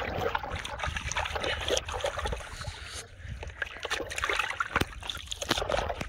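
Large live fish thrashing in a plastic tub of water, with irregular splashing and slapping and a short lull about halfway through.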